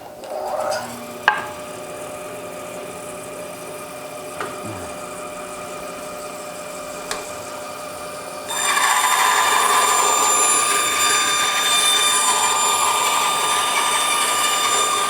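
Grizzly G0555X 14-inch bandsaw switched on with a click, its motor spinning up with a rising whine and then running steadily. About eight seconds in the blade enters the wood and the sound turns into a much louder rasping cut.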